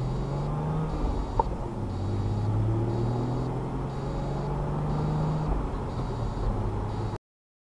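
Car cabin noise while driving, picked up by the dash cam's microphone: a low engine hum that rises in pitch twice as the car picks up speed, over steady tyre and road noise, with a single click about a second and a half in. The sound cuts off suddenly near the end.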